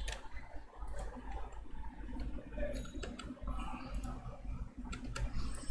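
Computer keyboard keys and mouse buttons clicking at irregular intervals while code is entered in an editor, over a low steady hum.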